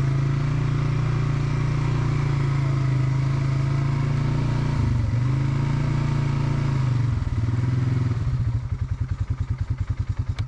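ATV engine running steadily under way, its pitch dipping briefly twice. In the last two or so seconds it drops to a slow, evenly pulsing low-rev chug as the machine slows.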